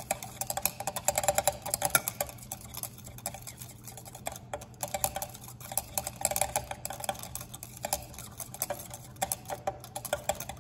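Rapid, uneven scraping and clinking of a thick slurry of barium hydroxide and ammonium chloride being stirred in a glass beaker, over a steady low room hum.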